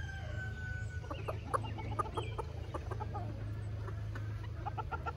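Silkie chickens clucking and chirping softly, with a quick run of short clucks near the end.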